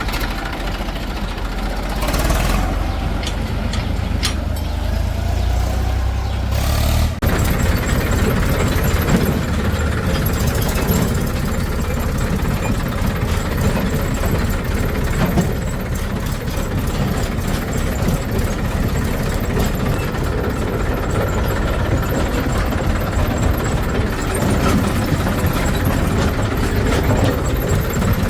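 Diesel engines of a backhoe loader and farm tractors running under work. A heavy low rumble gives way abruptly about seven seconds in to a rougher, busier engine sound.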